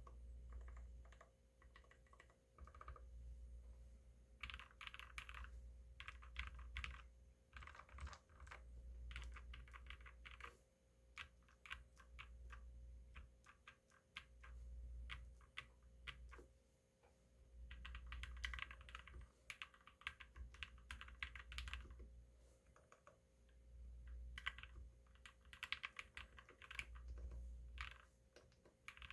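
Typing on a 60% mechanical keyboard with lubed JWK black linear switches in a Tofu60 case on a DZ60 PCB. The keys clack in quick runs lasting a second or two, with short pauses between them.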